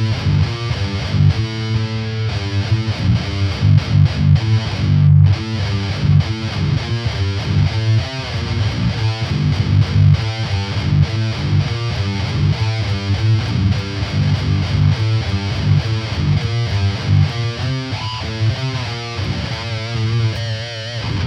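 Aristides electric guitar with heavy distortion playing a metal riff of fast, repeated low notes, breaking off briefly about five seconds in and stopping abruptly at the end.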